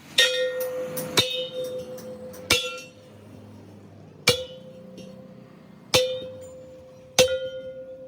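Hammer blows on a steel truck rim, six sharp strikes at uneven intervals, each leaving the metal ringing.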